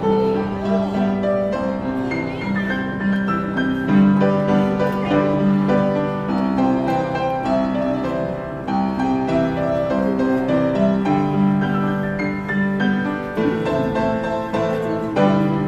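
Background music led by piano, with sustained notes changing every second or so.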